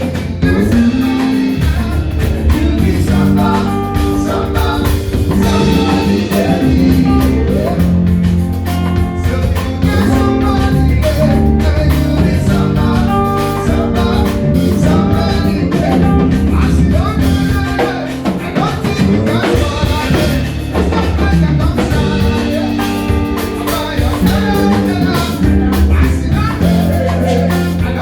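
A rock band playing live, with a drum kit, guitar and bass and a voice singing over it.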